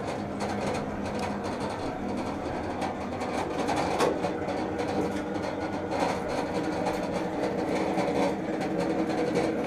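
Steady mechanical hum with a few held low tones, in a cramped metal compartment of a submarine. Sharp knocks come about four seconds in and again about six seconds in.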